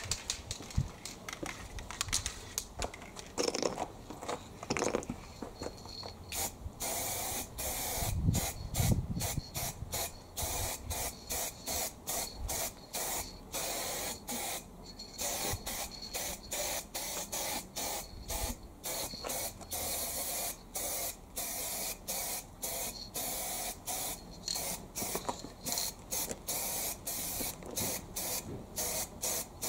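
Paint spraying in short, rapid bursts, about two or three a second, beginning about six seconds in; before that, a few scattered clicks and knocks.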